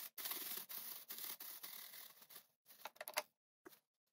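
Glass beads pouring from a plastic bag into a tin can with a punched-hole bottom: a steady trickle of many small clicks for about two and a half seconds, then a few separate light clicks as the pour ends.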